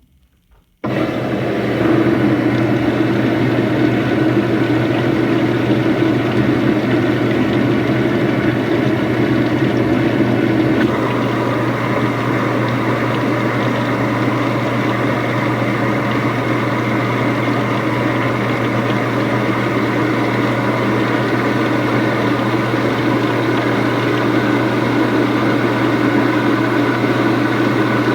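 Samsung washing machine filling with water on its deep-fill setting: water rushing steadily into the drum, with a steady low hum, starting suddenly about a second in and shifting slightly in tone partway through.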